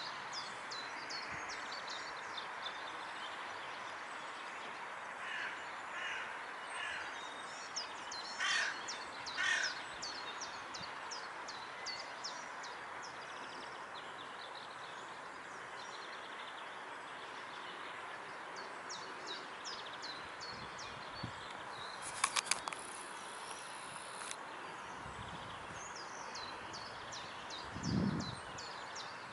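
Outdoor pond-side bird ambience: small birds singing, repeating short high falling notes, over steady background noise. A crow caws several times, loudest about 8 to 10 seconds in. A brief sharp clicking rattle comes about three-quarters of the way through, and a low thud near the end.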